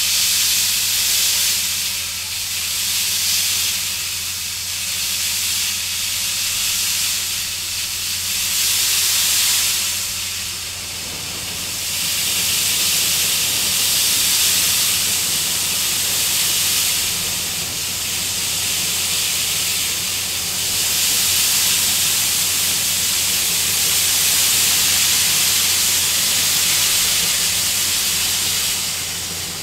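Steam hissing loudly from Reading & Northern 2102, a T-1 class 4-8-4 steam locomotive, swelling and easing several times over a steady low hum.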